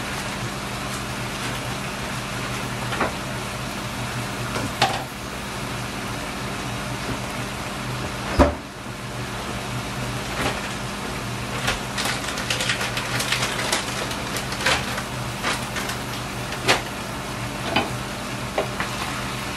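Chicken breast pieces and sliced mushrooms sizzling in a stainless steel frying pan, with crackles and spits coming more often in the second half, over a steady low hum. One louder thump about eight and a half seconds in.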